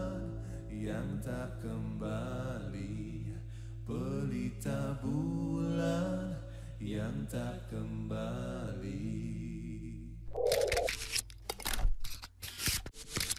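A male singer sings slow, held vocal lines with guitar accompaniment. About ten seconds in the song cuts off and a run of sharp, glitchy clicks and swishes from an animated title graphic follows.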